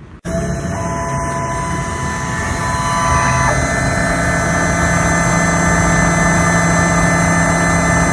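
A small CNC machine running, its spindle and cutter milling down an IC chip on a phone mainboard. The steady whine starts abruptly just after the start and grows a little louder about three seconds in.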